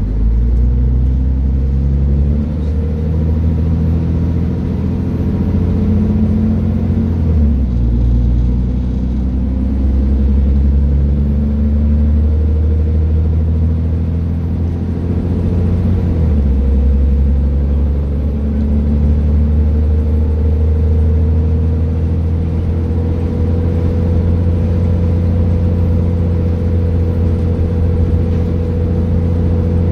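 Scania Citizen bus engine running, a loud, steady deep rumble whose note shifts twice, about seven and sixteen seconds in, with a faint whine slowly rising in pitch through the second half.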